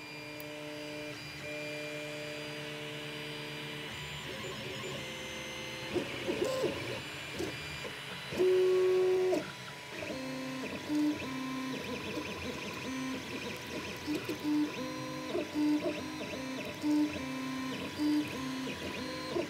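FDM 3D printer printing: its stepper motors whine in shifting pitches as the print head moves, turning into short, quickly alternating notes in the second half, over a steady fan hum.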